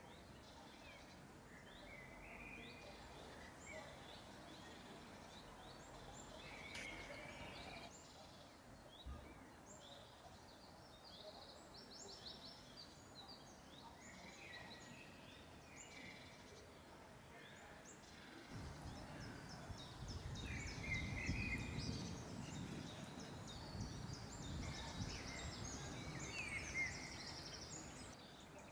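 Several songbirds singing and calling, a scatter of short chirps and trills. From about two-thirds of the way in, a low rumble rises beneath them for several seconds.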